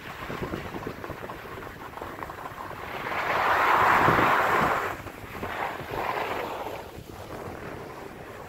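Skis hissing and scraping over groomed snow on a downhill run, with wind buffeting the microphone. About three seconds in the hiss swells loudly for a couple of seconds as the skis skid through a turn, then two shorter swells follow.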